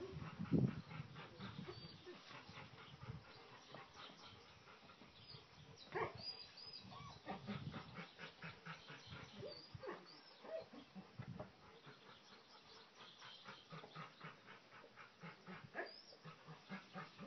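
Faint animal sounds: a quick run of short soft bursts throughout, with a few brief rising cries.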